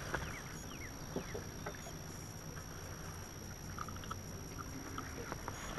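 Quiet ambience on a bass boat: a low steady hum with a few small clicks, and several short falling bird chirps in the first couple of seconds.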